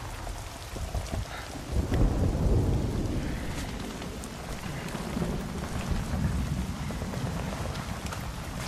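Battlefield sound effects: a continuous low rumble of explosions and shellfire, with the heaviest blast about two seconds in and a few faint sharp cracks over a noisy haze.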